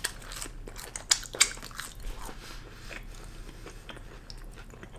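Close-up chewing and biting of McDonald's chicken nuggets, with scattered wet mouth clicks and a few sharper crackles in the first couple of seconds.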